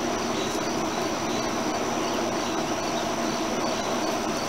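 Steady drone of a greenhouse exhaust fan, with insects trilling faintly in a high, evenly pulsing chirp over it.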